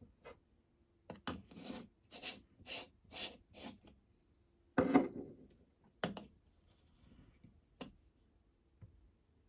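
Espresso coffee distribution tool turned over the ground coffee in a metal portafilter basket: about six rasping strokes, roughly two a second. Then comes a thump about five seconds in, the loudest sound, followed by a couple of sharp clicks as the grounds are tamped.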